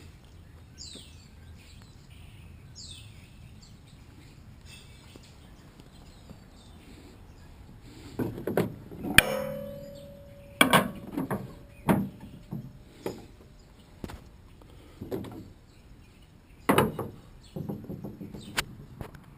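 Two short, falling bird chirps, then a string of heavy thuds and clanks starting about eight seconds in, the loudest one leaving a brief metallic ring.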